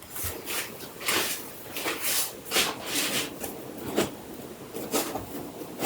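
Printer accessory packaging being handled: a quick run of short rustles and crackles, about two or three a second.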